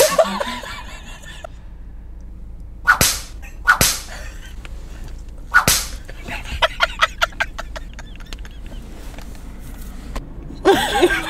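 Two women laughing hard: sharp, breathy gasps about three and four seconds in and again near six seconds, then a quick run of short laughing pulses, with laughter breaking out again near the end.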